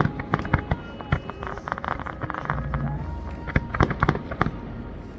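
Aerial fireworks bursting in a rapid, irregular string of sharp bangs and crackles, with a deep rumble coming in about halfway through.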